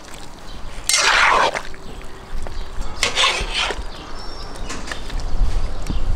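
A slotted metal skimmer stirring and scraping lamb and vegetables in a hot cast-iron kazan, with the food sizzling. Two strong stirring strokes come about a second in and about three seconds in, with lighter scrapes between them.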